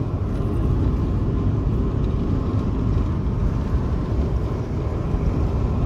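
Steady road and wind noise inside an Opel Vectra's cabin at highway speed, with the right-side window slightly open; no droning hum.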